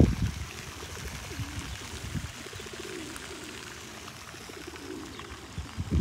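Feral rock pigeons cooing: a series of low, wavering coos over several seconds.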